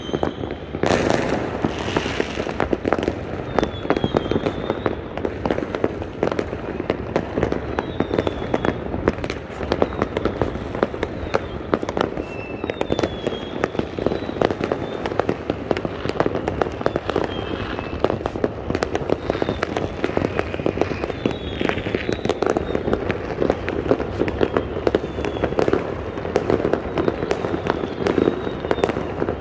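Aerial fireworks bursting in a dense, continuous barrage of pops and crackles, many per second, with short high whistles now and then.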